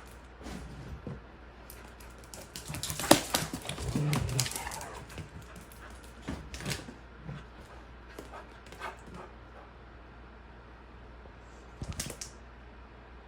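A dog moving about and making small noises: scattered clicks and scuffles, loudest around three to four seconds in, with a brief low whine or grunt about four seconds in.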